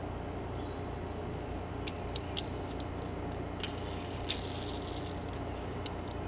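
Faint plastic clicks and ticks from a Hot Wheels die-cast toy car and its packaging being handled, a few scattered about two to four seconds in, over a steady low background hum.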